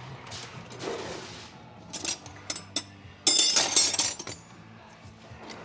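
Metal hand tools clinking and clanking as a wrench is picked up and handled, with a few sharp clicks and then a loud rattling clatter lasting about a second, a little past the middle.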